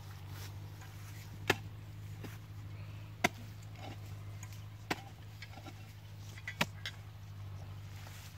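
Hoe chopping into the soil: four sharp strikes about a second and a half apart, with a few lighter knocks, over a steady low hum.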